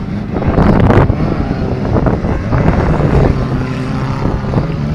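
Stock car engines running hard on a dirt track, several at once. A loud surge comes about a second in.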